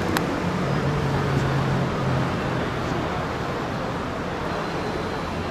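Steady, fairly loud background rumble and hiss, with a low hum from about half a second to two seconds in.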